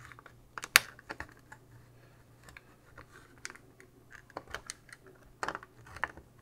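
Plastic case of a Commodore 774D calculator being pried apart by hand: scattered clicks and small snaps as its hook latches are worked loose along the sides, the loudest about a second in.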